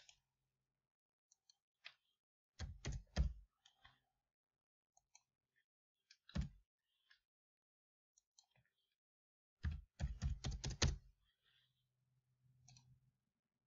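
Computer keyboard keystrokes typing numbers in short runs: a few quick taps about two and a half seconds in, a single tap near the middle, and a faster run of six or seven taps about ten seconds in.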